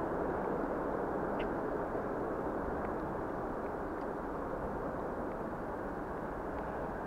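Steady, muffled low outdoor rumble with a few faint ticks scattered through it.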